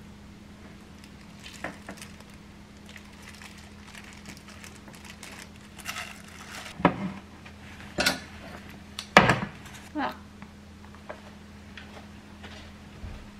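A metal spoon clinking and scraping in a glass mixing bowl as food is served onto a ceramic plate, then a few sharp knocks of dishes being set down, the loudest about nine seconds in. A steady low hum runs underneath.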